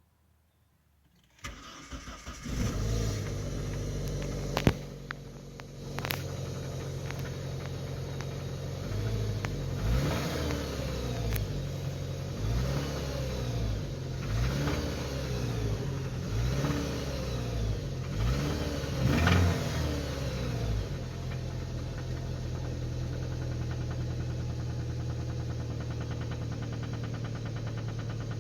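Z22SE 2.2-litre four-cylinder petrol engine starting about a second and a half in and settling to idle, with a sharp click a few seconds later. It is revved briefly five or six times in the middle, then returns to a steady idle. The owner hears a knock in it whose cause he does not know.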